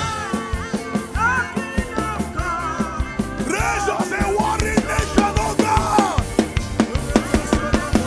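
Live worship music: a drum kit keeps a steady beat under a band while a man sings through a microphone, his melodic line rising and falling.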